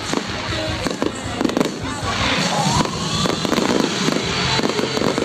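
Fireworks going off in a display: a dense run of bangs and crackling bursts, one after another.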